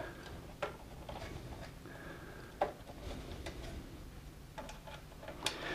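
Hand screwdriver backing out small screws from a plotter's plastic service-station assembly. A few faint, sparse clicks come about two seconds apart, with a soft short squeak twice as the screws turn.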